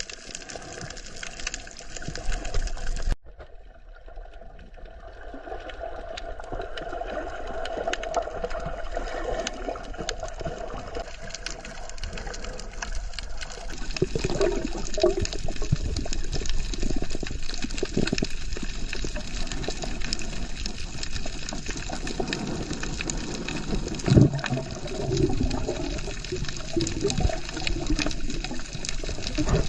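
Rushing, splashing water, with an abrupt cut about three seconds in, after which it builds up again.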